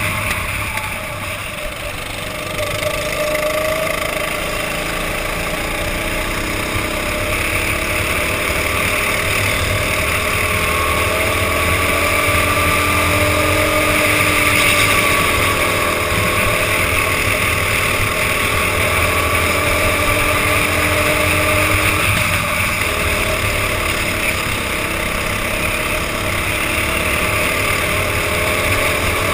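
Go-kart engine at racing speed, heard from a helmet-mounted camera, its revs rising and falling through the corners. The revs drop about a second in and pick up again a couple of seconds later.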